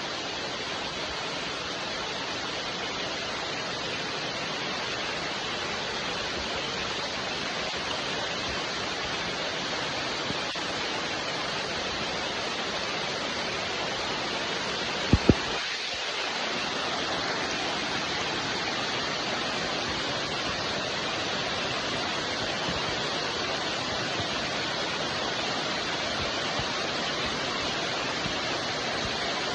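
Steady rain falling, an even hiss. About halfway through, two sharp clicks come in quick succession.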